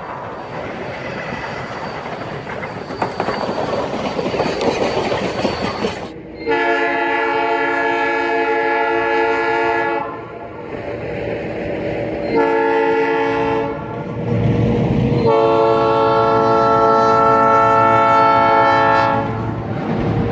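Diesel locomotive's multi-chime air horn sounding three blasts: a long one about six seconds in, a short one, then another long one. Beneath it the train rumbles past, and the horn is preceded by several seconds of rough rumbling noise.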